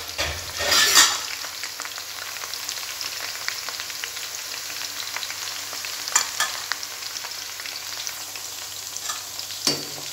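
Cut okra deep-frying in hot oil: a steady crackling sizzle made of many small pops. There is a louder surge about a second in and a few sharper clicks later, one near the end.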